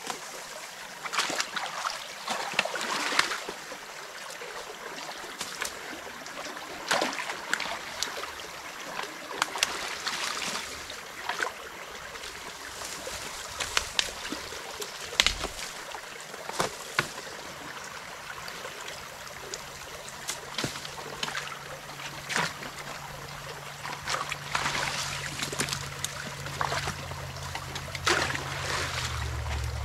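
Creek water running and trickling through a beaver dam as it is pulled apart, with scattered splashes and sharp knocks. A low steady hum comes in about two-thirds of the way through and grows louder near the end.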